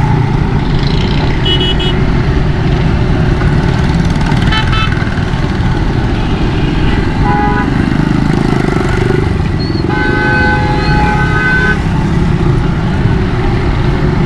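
Steady low rumble of a motorbike ride through traffic, with vehicle horns honking: a few short toots, then a longer horn blast about ten seconds in.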